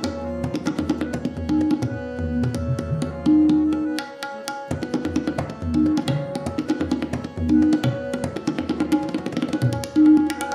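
Tabla solo: fast, dense strokes on the dayan and bayan, with deep bass notes from the bayan, over a repeating melody of sustained notes (a lehra) played on a keyboard-type instrument.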